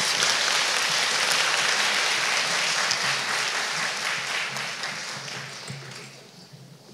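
Audience applauding, dense at first and dying away over the last few seconds.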